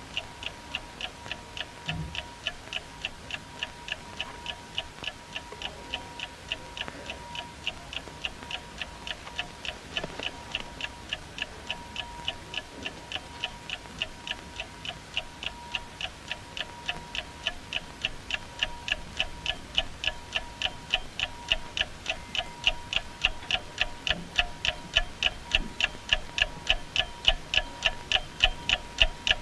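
A clock ticking steadily, about three ticks a second, getting louder toward the end, over a faint steady tone: the film's soundtrack marking the time running out on a player's decision.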